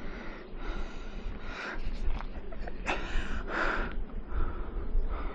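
A cyclist breathing hard, with about one puffing breath a second, over a steady low rumble on the microphone.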